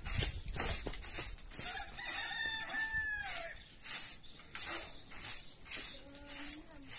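Short straw hand broom sweeping a dusty earth floor in quick swishing strokes, about two a second. A rooster crows about two seconds in, its call holding and then falling away.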